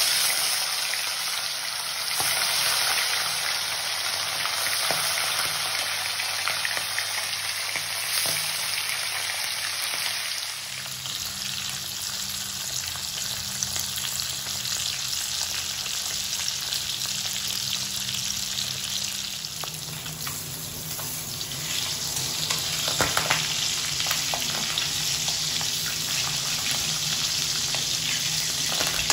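Pieces of singhi (stinging catfish) frying in hot mustard oil in a kadai, a steady sizzling; in the later part a steel spatula turns the fish, adding scrapes against the pan.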